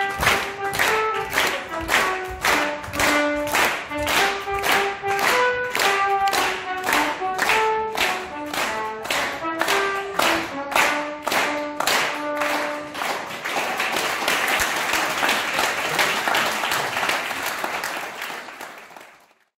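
Audience clapping in time, about two claps a second, along with a trumpet melody. About two-thirds through, the tune stops and the clapping turns into free applause, which fades out near the end.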